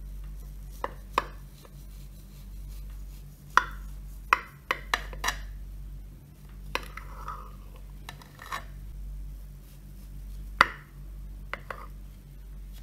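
Knife cutting through a soft coconut cake in a fluted glass baking dish, the blade knocking sharply against the glass about a dozen times, each knock ringing briefly. The loudest knock comes about ten and a half seconds in.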